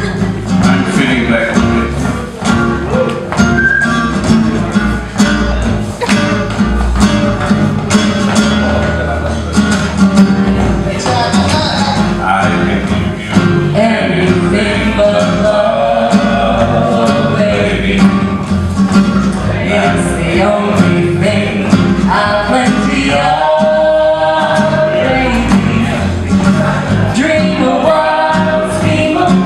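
Small acoustic jazz band playing a swing tune: a woman sings over a manouche (Gypsy-jazz) guitar, a classical guitar and an acoustic bass guitar keeping a steady plucked beat.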